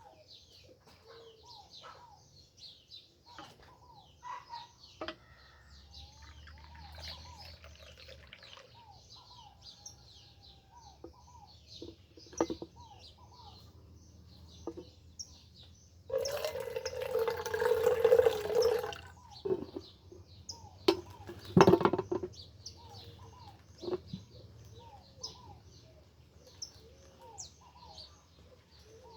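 Many small birds chirping and singing, overlapping calls throughout. Just past the middle a louder, harsh noise lasts about three seconds, and a sharp knock-like sound follows a few seconds later.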